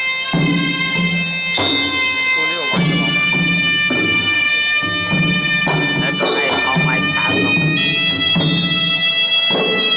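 Traditional Khmer boxing-ring music: a sralai reed pipe plays long, shrill held notes that change pitch every second or two, over steady hand-drum beats.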